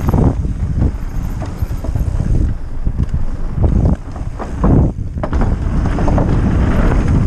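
Mountain bike riding fast down a dirt trail: wind buffeting the microphone over tyre noise, with frequent short knocks and rattles from the bike over rough ground.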